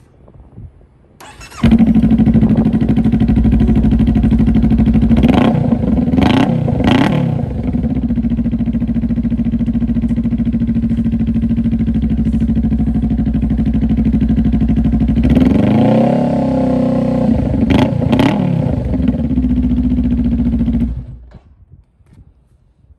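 Honda Rebel 500's parallel-twin engine running through a Vance & Hines upsweep slip-on exhaust: it starts about a second and a half in and settles into a steady idle. It is revved in three quick blips, idles again, is revved up and blipped twice more near the end, then is shut off.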